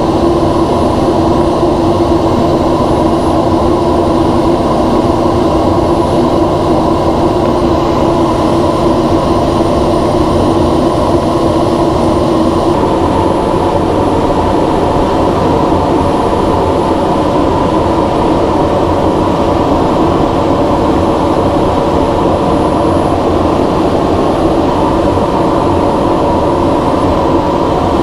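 Steady, loud in-cockpit drone of the NASA ER-2 in high-altitude cruise: its jet engine and airflow, with a layered hum beneath. The drone shifts slightly in tone about halfway through.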